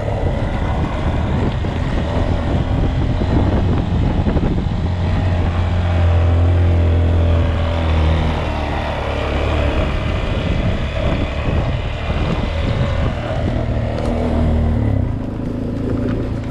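Motorcycle engine running steadily while riding, a loud low drone that swells about six to eight seconds in and then eases back.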